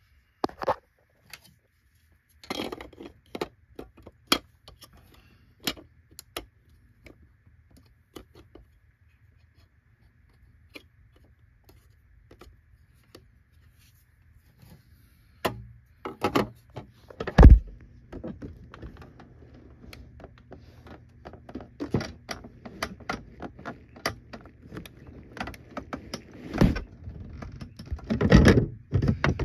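Irregular clicks, knocks and light rattles from plastic vacuum-cleaner parts and small metal hardware being handled during disassembly, with one heavy knock a little past halfway.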